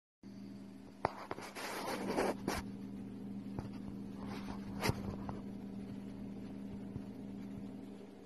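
Loose sand rustling and scraping as a viper shimmies its coils down into the sand to bury itself, the rustle strongest in the first couple of seconds. A few sharp clicks, the loudest about five seconds in, sit over a steady low hum.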